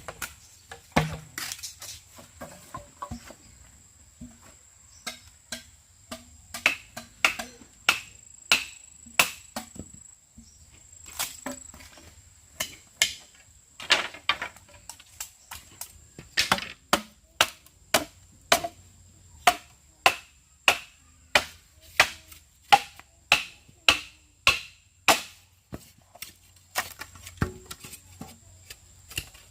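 Chopping: a long series of sharp strikes on wood, uneven at first, then steady at about two a second for a stretch in the second half. An insect keeps up a steady high trill in the background.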